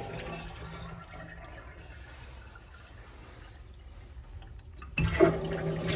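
TOTO toilet flushing: the rush of water fades over the first few seconds. About five seconds in, a sudden louder rushing sound with a steady low hum starts.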